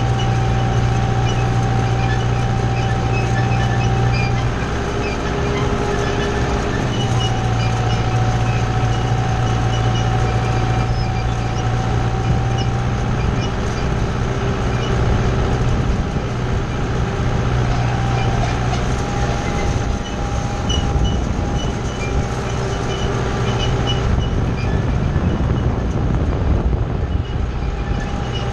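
Kubota tractor running steadily under load while pulling a wheel hay rake, with a low engine hum, a high whine that comes and goes, and the clatter of the rake's turning tine wheels.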